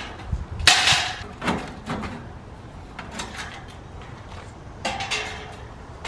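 Sheet-metal panels of an air conditioner's outdoor condensing unit being handled and set down, rattling and clattering in several short bursts, the loudest about a second in.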